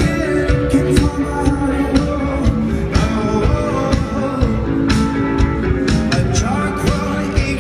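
Rock band playing live and amplified, with a voice singing over a steady drum beat and guitars.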